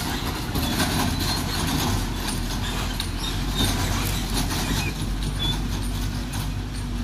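Engines of a Tata truck and a small utility vehicle running steadily as they move off at low speed: a continuous low hum with light clicks and rattles.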